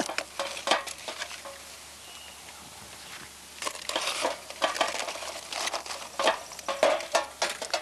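Metal fork and knife clinking and scraping on a metal sheet pan while aluminium foil packets are pulled open and crinkle. The sounds come as scattered clicks and rustles, with a quieter lull a couple of seconds in.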